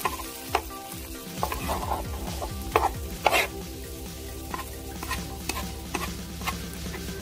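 Crab-lid fried rice sizzling on a flat griddle pan while a wooden spatula and a metal spoon stir and scrape it, with sharp scrapes and clicks of the utensils against the pan, the loudest about three seconds in.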